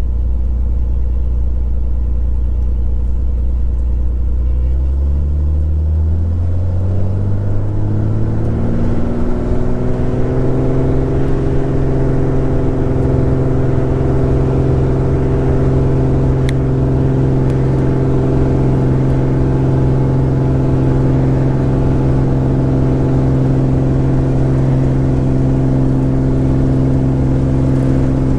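Single-engine piston airplane's engine and propeller throttling up from idle to full takeoff power, the pitch rising over about six seconds, then running steady at full power on the takeoff roll.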